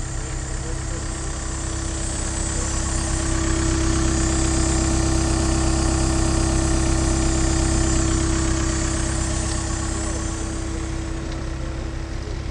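Ditch Witch MX502 mini excavator's diesel engine running steadily at idle, a constant drone with a steady hum. It grows louder for several seconds in the middle and then eases off.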